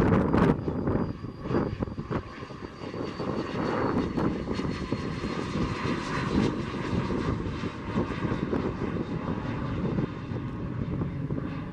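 Pilatus PC-24 business jet passing overhead and climbing away, its twin turbofan engines giving a steady jet noise with a faint high whine that falls slowly in pitch. A few gusts of wind hit the microphone right at the start.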